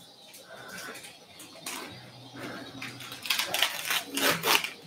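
Rustling and rubbing handling noises in short rasping bursts, bunched in the second half, as a gauze swab is pressed and worked against the surgical wound and drapes.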